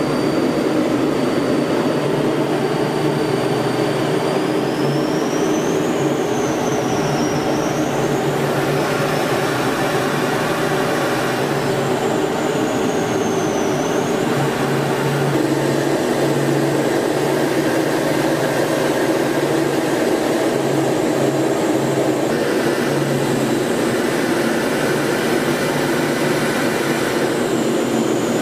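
Steady drone of a jet training aircraft's engine and rushing air, heard from inside the cockpit, with a thin high engine whine that rises and falls in pitch in the first half. The noise shifts in tone abruptly a few times.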